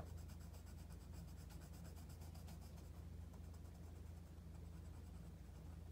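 Faint scratching of a black colored pencil shading on paper, over a steady low hum.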